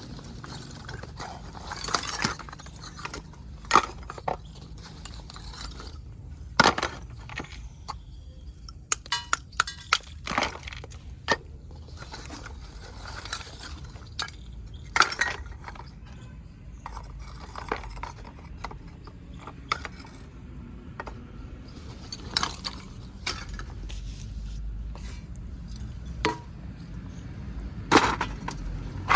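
Baked clay kulhad cups being broken and crunched: irregular sharp cracks and brittle crunches, a second or two apart, with a quicker cluster near the end.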